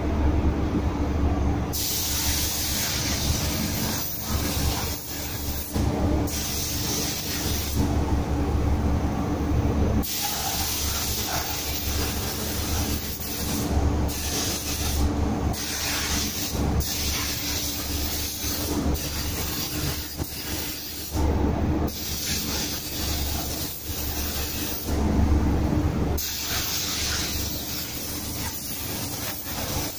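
DeVilbiss GTi Pro Lite spray gun hissing as it sprays matt clear coat, the trigger held for a few seconds at a time and released between passes. A steady low hum runs underneath.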